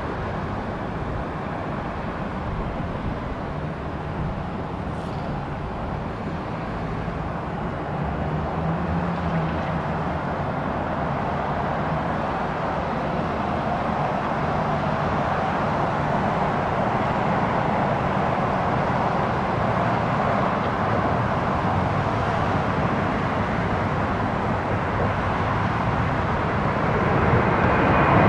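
Airbus A319 jet airliner on landing approach, the steady rush of its CFM56 turbofans growing gradually louder as it nears.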